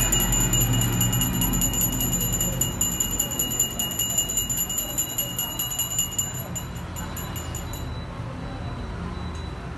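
Puja hand bell rung rapidly and steadily, about eight strokes a second, stopping about eight seconds in.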